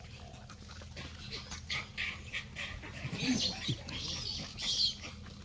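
Gray langurs squabbling over food, giving several short, high-pitched squeals, with a brief lower call about three seconds in.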